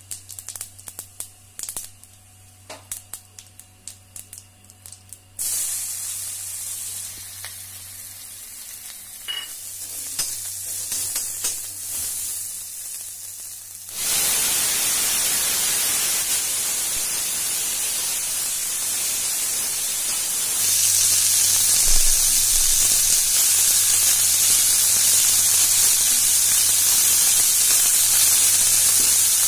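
Cumin seeds crackling in hot oil, first as scattered small pops and then as a light sizzle. About halfway through, chunks of raw pumpkin are tipped into the pan, and the frying suddenly becomes a loud, steady sizzle that stays loud.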